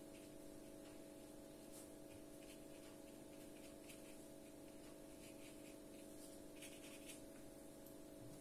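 Faint, soft scratches of a watercolour brush stroking across paper at irregular moments, over a steady faint hum.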